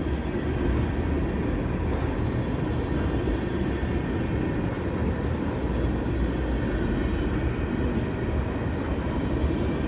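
Freight train tank cars rolling past at yard speed, with a steady, even rumble of wheels on rail.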